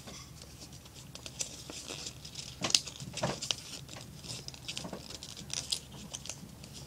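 Folded paper airplane rustling and crinkling in the hands as its folds are handled and pressed. It makes a run of short, irregular rustles and crackles, with the loudest crackle a little under three seconds in.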